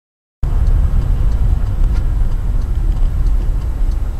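Low, steady rumble of a car in slow city traffic, heard from inside the car, starting abruptly after half a second of silence. Faint, regular ticks come about one and a half times a second.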